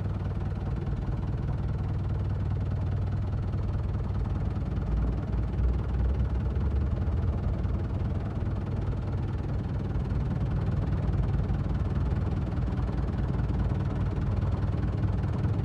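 Kubota M7970 tractor's diesel engine running steadily at low revs, with a brief swell in its low rumble about five seconds in.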